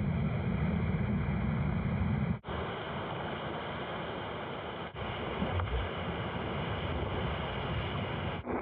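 Rushing whitewater of a river rapid, a steady noise of moving water with some wind on the microphone. It drops out sharply for an instant about two and a half seconds in and again about five seconds in.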